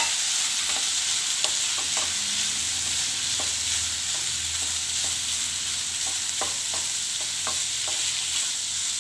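Spatula stirring diced beetroot and grated coconut in a kadai, with a steady sizzle from the pan and scattered light scrapes and taps of the spatula against the pan.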